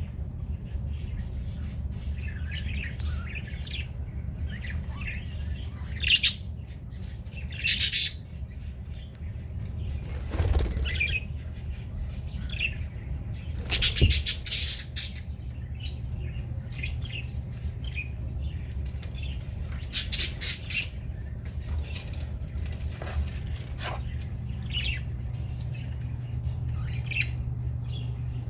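Budgerigars chirping now and then, with several short bursts of wing flapping, over a steady low hum.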